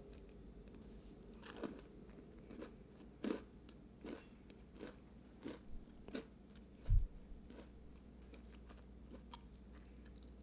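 Someone biting into and chewing a freshly baked green onion scone: short crisp crunches about every three-quarters of a second, fading off in the second half, with one dull low thump about seven seconds in, the loudest sound.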